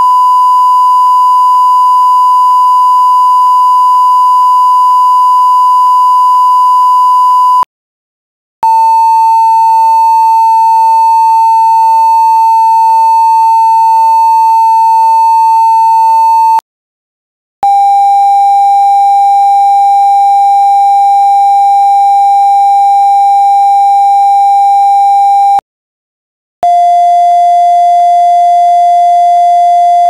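Censor bleep: four long, steady beep tones of about eight seconds each, with a short break between them, each a step lower in pitch than the last.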